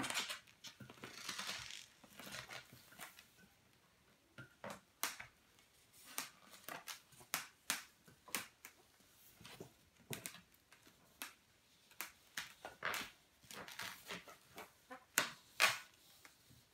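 Latex modelling balloons squeaking and creaking as they are twisted and handled, in a string of irregular short squeaks.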